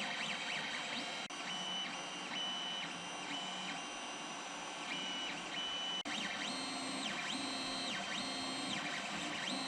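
Creality Ender 3 3D printer's stepper motors whining as the print head moves, their pitch repeatedly rising, holding and falling with each move, over a steady low hum. The sound breaks off briefly twice.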